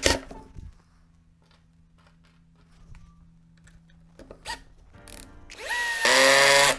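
Makita cordless drill/driver driving a screw into a cedar block. Near the end the motor winds up in a rising whine and runs hard for under a second, then stops. A few knocks and clicks come at the start.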